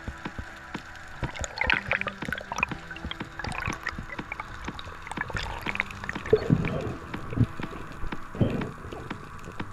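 Underwater sound through an action camera's waterproof housing: water gurgling and swishing past, with many scattered sharp clicks and crackles. Several louder low gurgling swishes come in the second half.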